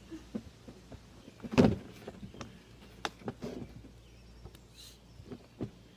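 Knocks and bumps on a wooden porch as a large plastic tub is handled: one loud thump about a second and a half in, then several lighter knocks.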